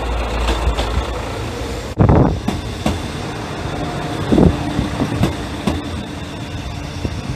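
Mizushima Rinkai Railway diesel railcar running slowly past, its engine rumbling and its wheels clacking over rail joints a few times. A sharp thump about two seconds in.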